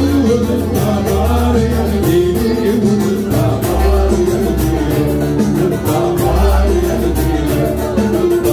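Live band music: a plucked lute plays the melody, with violin and a repeated low bass beat.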